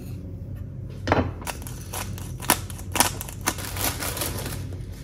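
Kitchen knife knocking on a wooden chopping board while slicing cherry tomatoes: a handful of sharp separate taps. Near the end comes a denser crinkling of a plastic salad bag being opened.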